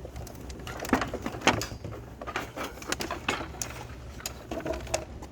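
Scrap being picked through by hand: a string of irregular knocks, clicks and clatters, the loudest about one and one and a half seconds in, over a low steady hum.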